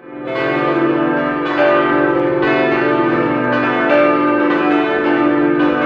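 The Urban bell, a large 3,200 kg tower bell cast in 1588 and tuned to about C-sharp, swinging and ringing loudly. Its clapper strikes about once a second and the ringing carries on between strokes.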